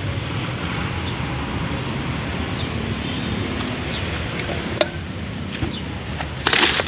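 A motor vehicle engine idling steadily, a low even rumble under outdoor background noise, with a single sharp click about five seconds in and a brief louder rustle near the end.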